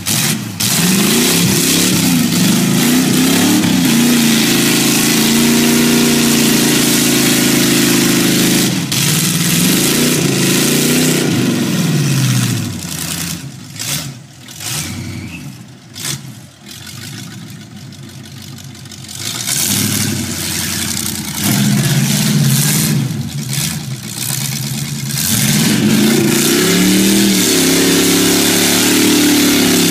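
Lifted mud-tyred pickup truck's engine revving hard in a mud pit, its pitch rising and falling again and again as the tyres spin and sling mud. The engine drops away for several seconds in the middle, then revs up again and stays loud near the end.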